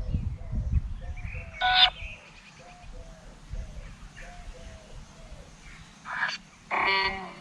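Necrophonic ghost-box app sounding from a phone speaker: a steady run of short repeated blips, broken by bursts of garbled, voice-like fragments, one loud burst about two seconds in and two more near the end. A low rumble sits under the first two seconds.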